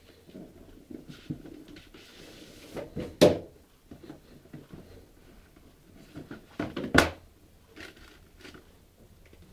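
Handling of a cardboard shoebox and football boots: soft rustling and small clicks, with two sharp knocks, one about three seconds in and one about seven seconds in.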